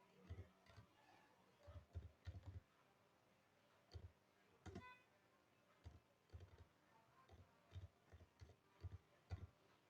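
Faint, irregular clicks of typing and clicking on a keyboard and mouse, often in quick clusters of two to four.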